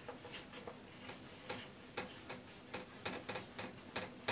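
Marker pen writing on a whiteboard: irregular short taps and scratches as the letters are written, coming faster in the second half.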